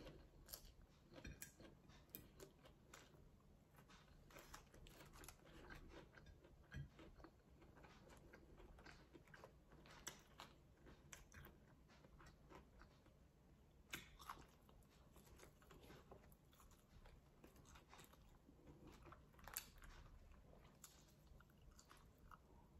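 Faint, close mouth sounds of chewing with scattered crisp crackles from iceberg lettuce taco wraps being handled and folded.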